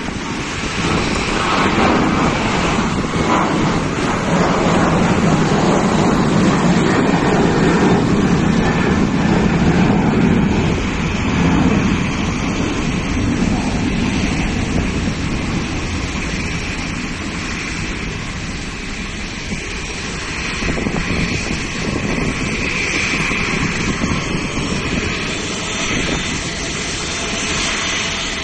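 Boeing 737-800's CFM56-7B turbofan engines at takeoff thrust as the jet climbs away after takeoff: a loud, steady rushing engine noise, loudest in the first ten seconds or so, then slowly fading.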